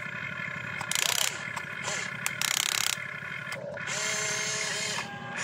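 An RC excavator's electric motors and gearboxes whine, rising and falling in pitch as the arm and bucket dig. Two short bursts of fast rattling come about a second and two and a half seconds in.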